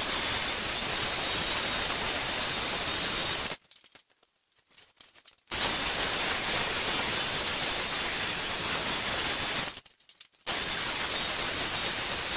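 Skil electric belt sander running steadily as it sands a glued-up wooden panel, a steady rushing noise with a high whine. The sound drops out abruptly twice, for about two seconds a little before the middle and briefly near the end, then comes straight back.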